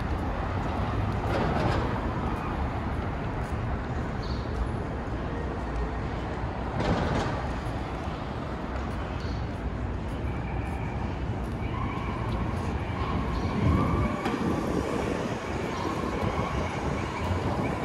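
City street traffic ambience: a steady rumble of passing vehicles, with a few louder passes. In the second half a held tone sounds on and off several times.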